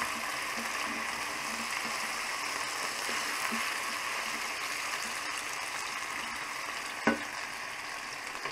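Diced potatoes sizzling steadily in hot oil in a frying pan while being stirred and turned with a wooden spatula, as they start to brown and form a crust. A single knock about seven seconds in.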